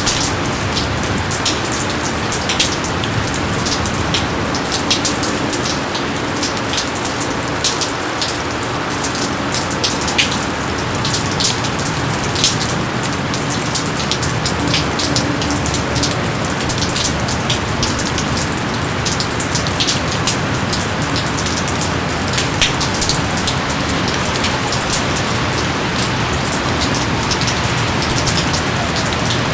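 Steady rain falling, with many close individual drops ticking sharply over a constant hiss.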